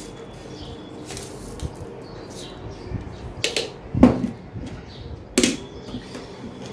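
Four sharp clinks and knocks of kitchen utensils against a shaker as ingredients are added, the loudest about four seconds in.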